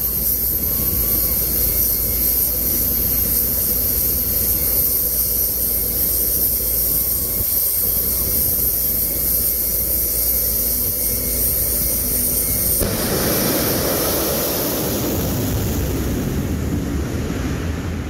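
Jet engine of a jet-powered semi truck running with a steady high whine over a low rumble while staged. About 13 s in the sound changes suddenly to a louder, broader rush as it goes to full power and launches down the drag strip, then fades.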